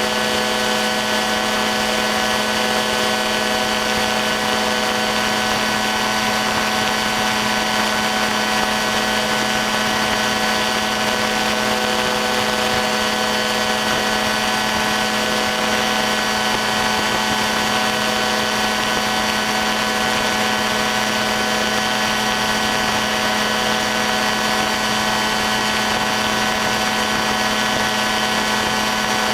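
Ultralight aircraft engine and propeller running at a steady cruise power in flight, a constant drone with a strong hum and no change in pitch.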